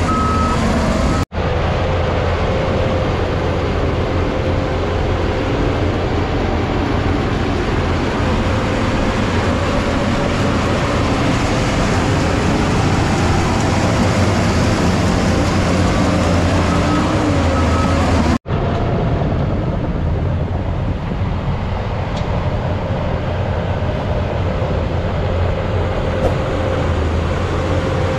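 Shantui crawler bulldozer's diesel engine running steadily under load as it pushes soil: a deep engine hum with a faint thin whine above it.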